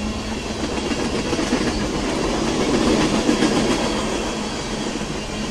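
Freight train of oil tank cars rolling past, its wheels clicking over the rail joints in a steady clickety-clack. The rumble swells to its loudest about three seconds in.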